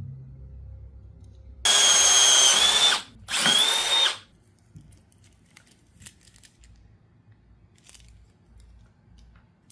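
Two blasts of compressed air from an air-compressor blow gun: a loud hiss with a high whistle, the first lasting over a second and the second under a second.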